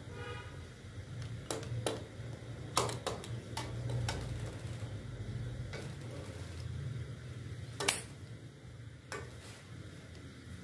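Steel ladle stirring and scooping milky tea in an aluminium pot, knocking against the pot several times, loudest near eight seconds in, over a steady low hum.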